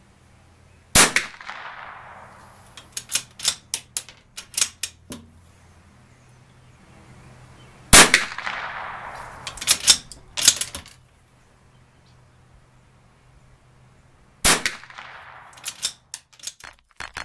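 Three shots from a Bergara B14R bolt-action .22LR rifle, about seven seconds apart, each report trailing off over about a second. After each shot comes a quick run of clicks as the bolt is worked to eject the case and chamber the next round.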